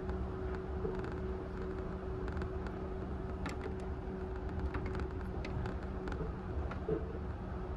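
Running noise inside a Yurikamome automated rubber-tyred train car at speed: a steady low rumble of the tyres on the guideway with a constant hum, and occasional light ticks and rattles.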